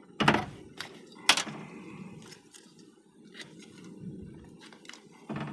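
Hammer blows knocking a brass piece free from a scrapped POS terminal: two sharp knocks in the first second and a half, light metallic clicks and taps, and another knock near the end.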